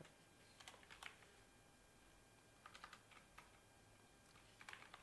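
Computer keyboard typing in a few short bursts of faint keystroke clicks.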